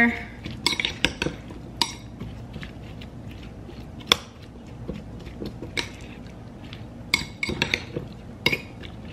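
Metal fork stirring a cucumber, pineapple and strawberry salad in a ceramic bowl, with irregular clinks and taps of the fork against the bowl.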